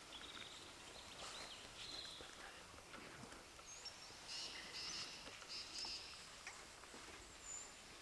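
Faint forest ambience with scattered bird calls: a few short high chirps early on, a run of repeated high notes around the middle, and two brief whistles. A few soft snaps or rustles sound now and then.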